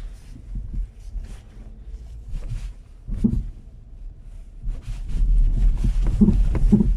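Low rumble of a Skoda Kodiaq rolling slowly, heard from inside the boot, with short dull knocks from the rear right suspension. The knocks grow heavier near the end. This is the 'хрюк-хрюк' grunting knock, which the mechanics suspect comes from a rear shock absorber rod nut not tightened.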